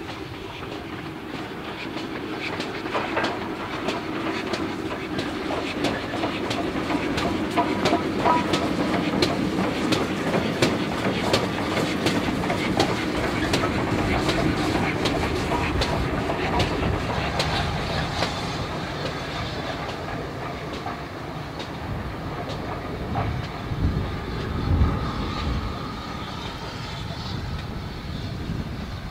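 GWR Large Prairie 2-6-2T steam tank engine No. 4144 and its coaches rolling past, wheels clicking over the rail joints. It grows louder as the train passes, then fades as it draws away, with a few low thumps near the end.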